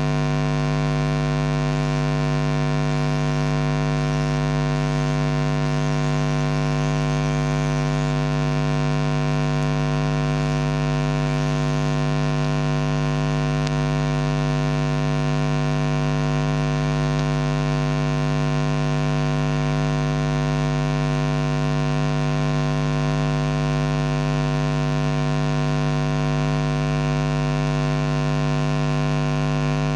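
Loud, steady electrical mains buzz in the microphone and sound-system feed: a low hum with many overtones that does not change.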